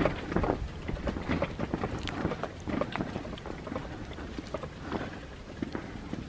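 Footsteps walking at a steady pace, a run of irregular short scuffs and knocks, with wind rumbling on the microphone.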